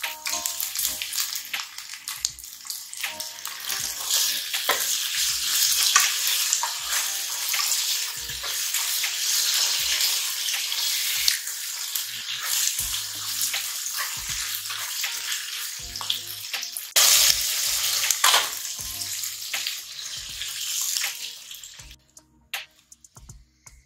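Sauce sizzling hard in a hot frying pan of fish cakes, crab sticks and meatballs, the sizzle building over the first few seconds, with scrapes and clicks as a plastic spatula stirs the pieces. The sizzling stops abruptly near the end.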